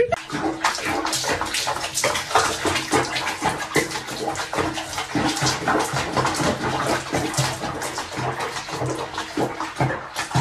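Water sloshing and splashing in a bathtub as a cat is bathed in foamy water, with a dense patter of small splashes throughout.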